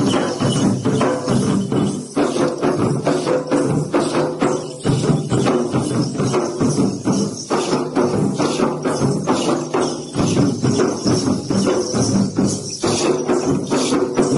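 Gaur Madiya tribal dance music: drums beaten in a fast, steady rhythm under continuous jingling metal percussion.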